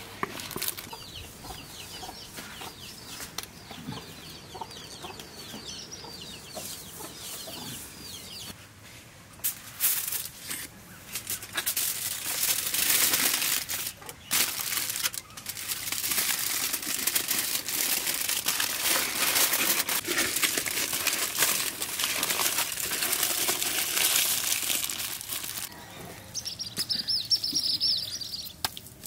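Aluminium foil crinkling and crackling as it is folded by hand around a leaf-wrapped chicken parcel, loud and continuous from about ten seconds in until near the end.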